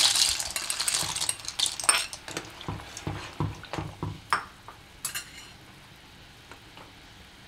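Dry shell pasta poured into a pan of boiling water with a short rush of hissing at the start, then a spoon stirring it and knocking against the pan several times. After that the water bubbles faintly.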